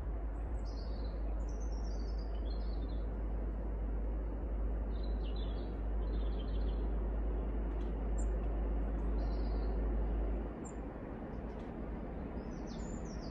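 Songbirds chirping in short, repeated high phrases, over a steady low rumble that drops away suddenly about ten seconds in.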